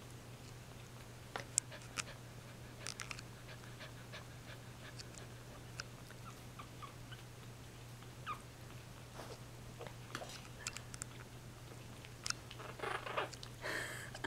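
Two-week-old Norwich Terrier puppies stirring on a fleece blanket, with a few brief faint squeaks and small clicks over a steady low hum. A louder stretch of rustling comes near the end as the adult dog noses in among them.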